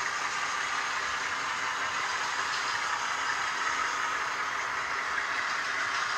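Model freight train rolling past on layout track: a steady running noise of the cars' wheels on the rails, with a light rattle.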